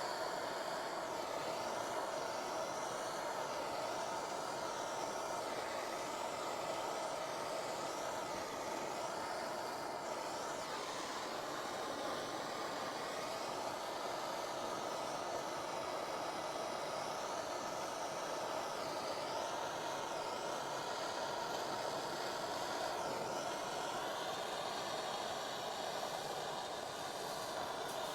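Gas torch flame hissing steadily while the tanks of a heater core are soldered.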